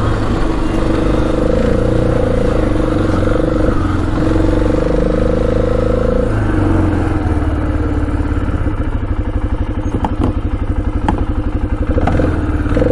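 2006 Arctic Cat 400 ATV's single-cylinder engine running steadily under way. About six seconds in the throttle comes off and the engine drops to a pulsing idle, with a few sharp clicks. Right at the end the revs rise again.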